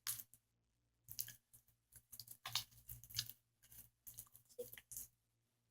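Homemade glue slime being mixed and worked by hand, giving faint, irregular sticky squishing and crackling sounds with short pauses between them.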